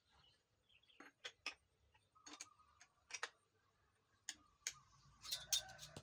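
Scattered light clicks and knocks of hand tools and a wooden guard block being handled on the steel table of a woodworking shaper (spindle moulder), with a quick cluster of sharper clicks near the end. A faint steady tone comes in about two seconds in.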